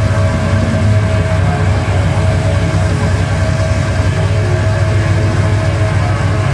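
Steady low rumbling drone with faint held tones above it, part of an electronic piece built from recorded sea sounds.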